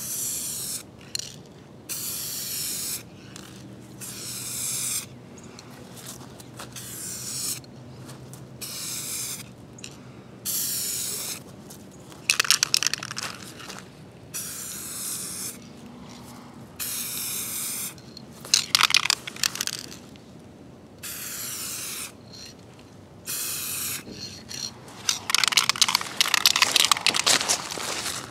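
Aerosol can of single-stage automotive paint spraying a light first coat in many short hissing passes of about a second each, starting and stopping off the part. Three times, the loudest near the end, the can's mixing ball rattles rapidly as the can is shaken between passes.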